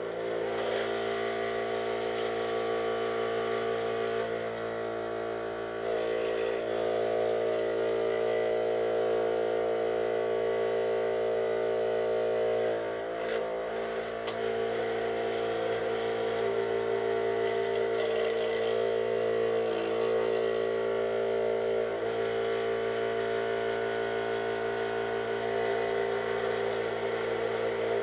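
Electric scroll saw running steadily with a constant motor hum while its blade cuts 5 mm plywood; the level dips briefly a few seconds in and again around the middle.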